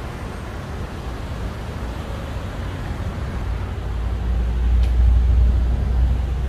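Low vehicle and road rumble, which swells louder about four seconds in.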